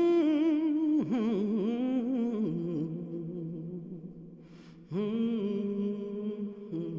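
Film soundtrack music: a slow melody of long held notes with vibrato. It moves to new notes about a second in, fades, then comes back with a fresh note about five seconds in.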